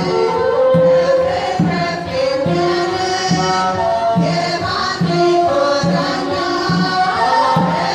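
Choir singing an Ethiopian Orthodox Tewahedo mezmur, several voices together in a chant-like melody, over a drum beating a steady pulse about once every 0.8 seconds.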